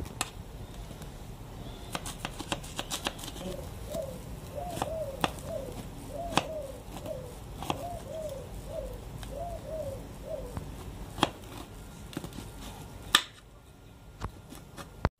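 Knife slicing bitter gourds lengthwise on a chopping board: scattered light clicks and taps of the blade on the board, with one sharper knock about 13 seconds in. From about four to ten seconds in, a short rising-and-falling call repeats about twice a second in the background.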